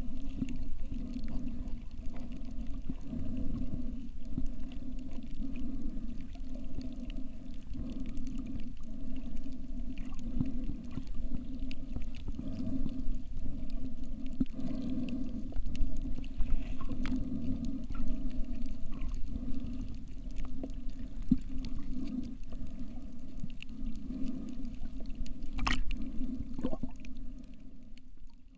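Muffled underwater sound from a submerged camera: a low, steady hum that swells and fades with water movement, with a single sharp click about three seconds before the end.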